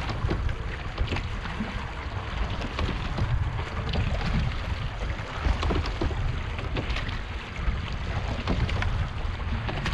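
Sailing boat under way while racing: wind buffeting the microphone in a steady low rumble, with water rushing past the hull and scattered short splashes and knocks.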